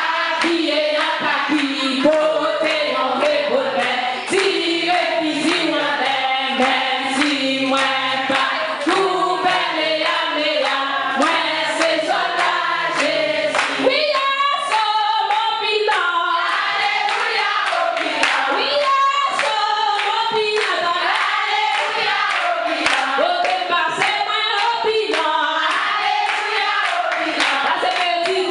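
Church congregation singing a hymn together, many voices in unison, with hands clapping along.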